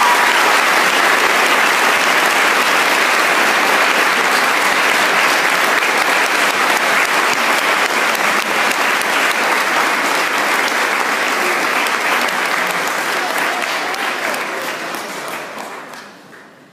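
Audience applause, a dense, steady clapping that fades away near the end.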